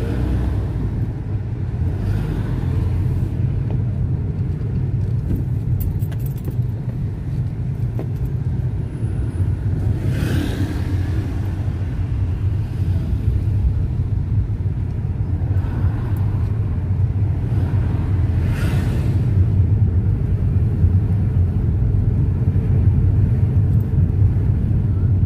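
Road noise inside a moving car's cabin: a steady low rumble of engine and tyres, with brief swooshes of passing traffic about ten and eighteen seconds in.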